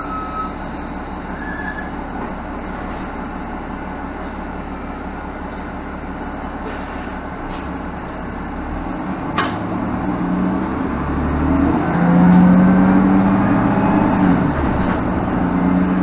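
Diesel engine of a 2017 Nova Bus LFS city bus, heard from inside the bus. It idles steadily for about nine seconds, then a brief sharp sound comes, and the engine revs up and grows louder as the bus pulls away, with a faint high whine.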